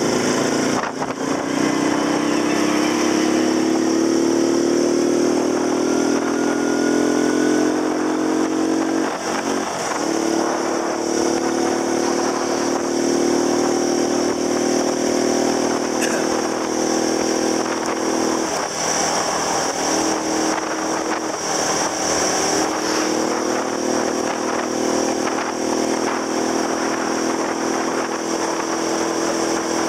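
Motor scooter's engine running under way, rising in pitch over the first several seconds as it speeds up, dipping briefly about nine seconds in, then holding a steady cruise.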